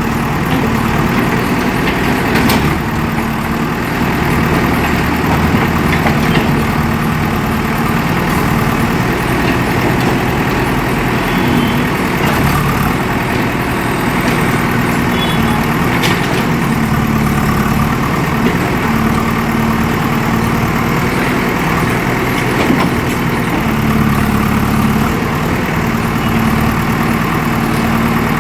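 Diesel engine of a JCB 3DX backhoe loader running steadily, its low hum wavering slightly in pitch as the load changes, with a few faint knocks.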